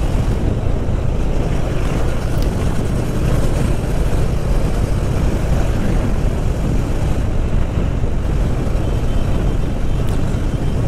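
Steady wind rush and engine and road noise of a motorcycle being ridden at an even speed, picked up by the rider's own microphone. It is a dense, low rumbling noise that doesn't change.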